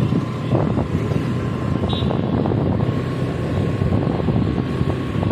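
Steady vehicle running noise with wind buffeting the microphone, a faint steady whine over it and a brief high beep about two seconds in.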